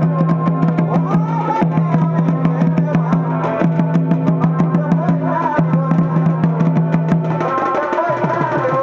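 Chhau dance music: fast, driving folk drumming with a wavering melody line over a held low drone that cuts out several times and stops near the end.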